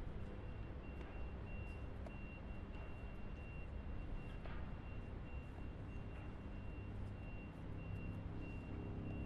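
A vehicle's reversing alarm beeping in an even, repeating rhythm over a steady low engine rumble.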